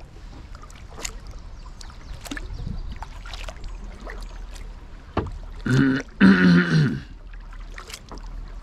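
Kayak paddling: the paddle blades dipping into and dripping on calm water, with light clicks roughly every second. About six seconds in comes a short low vocal sound from the paddler, the loudest thing here.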